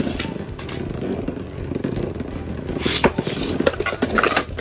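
Beyblade Burst tops, Dynamite Belial and Savior Valkyrie, spinning on a plastic stadium floor with a steady scraping whir. From about three seconds in there are repeated sharp clicks and knocks.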